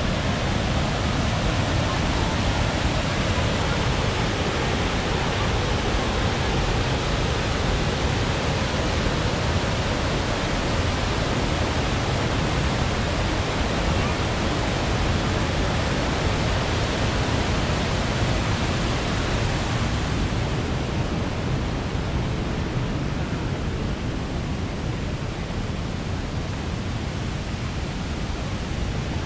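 Steady, loud rush of water, an even continuous noise without breaks. Its higher hiss softens slightly about two-thirds of the way through.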